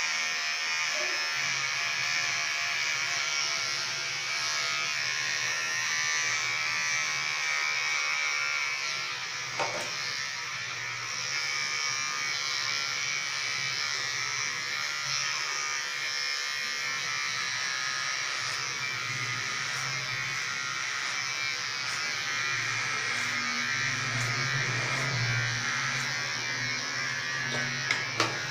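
Electric hair clipper running steadily as it cuts the hair on the sides and back of the head, in a small tiled bathroom. A short click comes about ten seconds in and two sharp clicks near the end.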